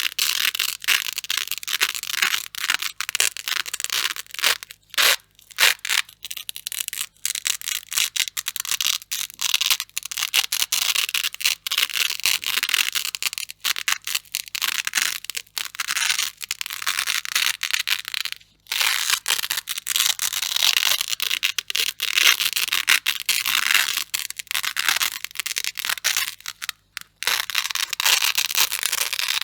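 Hook-and-loop (Velcro) fastener being ripped apart again and again: a crisp, crunchy crackle with only brief pauses about five seconds in, near the middle and near the end.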